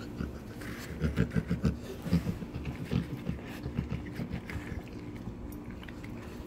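A Rottweiler licking and chewing the last scraps of barbecued chicken off a plate: an irregular run of short smacks, several a second, starting about a second in and easing off near the end.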